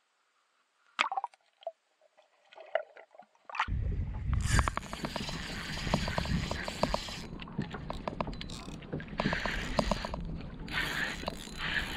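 A few small knocks in near silence, then about 3.5 seconds in a steady rush of wind on the microphone with water splashing and lapping around a kayak, and a run of quick small clicks.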